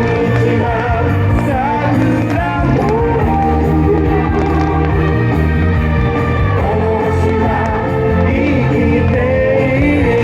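A song with a singing voice over a band accompaniment, the music that a fireworks show is set to.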